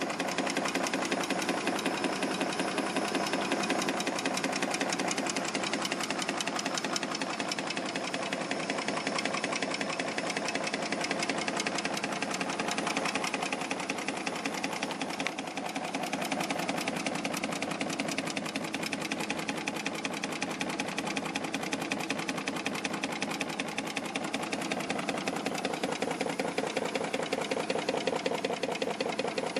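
Large home-built Stirling hot-air engine running steadily, its crank and linkage mechanism making a fast, even mechanical clatter. The engine is still too noisy.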